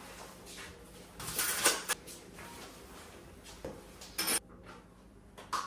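Kitchen handling sounds: the refrigerator door shut and food and dishes set down on the countertop, a stretch of rustling and knocks loudest about a second and a half in, then a few short clicks and clatters.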